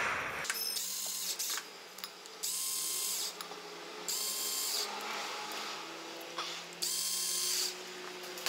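Cordless power driver spinning in short runs of about a second, three strong and a shorter one about a second in, backing out the water pump's mounting bolts.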